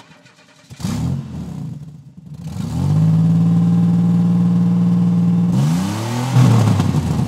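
Engine revving sound of a ride-on toy tractor stuck in mud with its rear wheel spinning: the pitch climbs twice, holds steady and high for about three seconds, then climbs again near the end.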